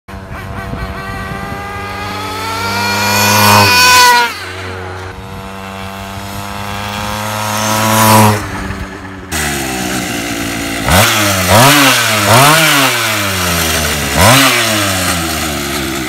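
Small 50cc gasoline engine of a go-ped motor scooter, a grass-trimmer-type engine, accelerating past twice, its pitch climbing and then dropping sharply as it goes by. It then runs steadily and is revved in four short blips.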